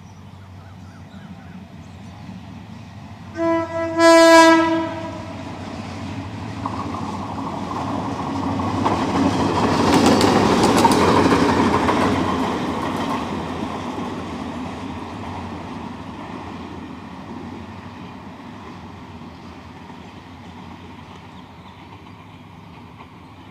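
Diesel locomotive running light, with no carriages: a short horn toot then a longer blast about three and a half seconds in. The engine and wheels then grow louder as it approaches, are loudest as it passes about ten to twelve seconds in, with wheels clicking over the rail joints, and fade away as it moves off.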